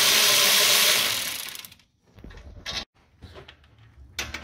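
Cordless electric ratchet running steadily as it spins out a rear brake caliper bracket bolt, then winding down and stopping about a second and a half in. A few faint clicks and taps follow.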